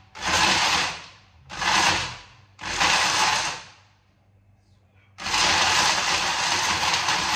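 Countertop blender grinding dry neem cake into powder: three short pulses of the motor, then a steady run from about five seconds in.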